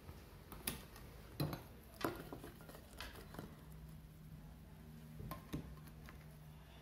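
Faint, scattered taps and clicks, about five in all, as coffee-dipped ladyfingers are handled over a ceramic bowl and set into a glass baking dish. A low steady hum comes in about halfway through.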